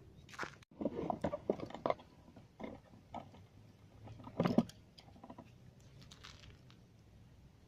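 Irregular crunching and rustling, close up, with a louder cluster about a second in and a sharp crackle about halfway through.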